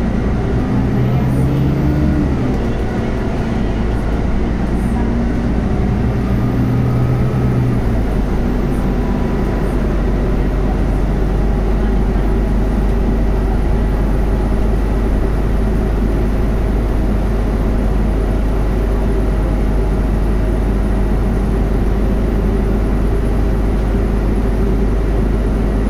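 Cabin sound of a Scania Castrosua New City articulated bus with a compressed-natural-gas engine and ZF Ecolife automatic gearbox, under way. For the first few seconds a pitched engine drone rises as the bus accelerates; about eight seconds in the pitched note drops away, leaving a steady low rumble of engine and road noise while cruising.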